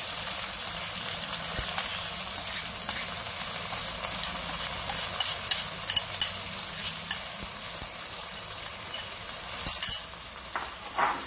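Soaked val dal sizzling and crackling in hot spiced oil in a steel kadai, just after it is poured in, with a metal spatula in the pan. A brief louder burst comes about ten seconds in, and the sizzle is quieter after it.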